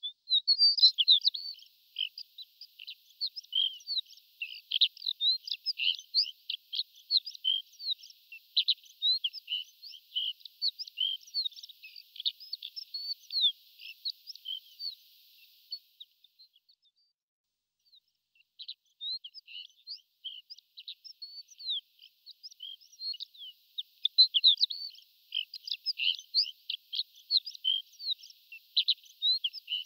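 Horned lark singing: a long run of rapid, high tinkling notes that breaks off for about two seconds midway and then resumes.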